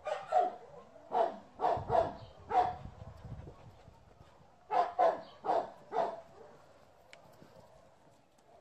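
A dog barking: a run of about six sharp barks, a pause of nearly two seconds, then four more.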